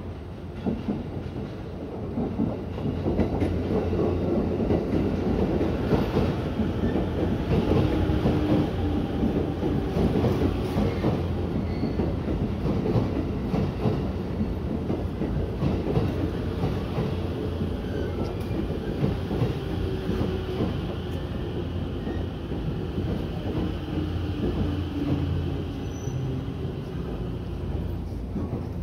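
JR East E257 series electric train pulling into the platform, its wheels clicking over the rail joints over a steady rumble as the cars roll past, with a faint whine as it slows.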